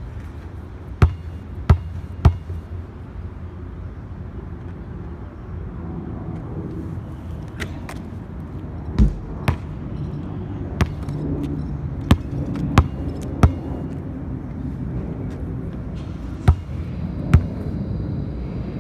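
A basketball bouncing on a concrete court. Three quick bounces come about a second in, and scattered single bounces follow from about halfway through, over a steady low background rumble of traffic.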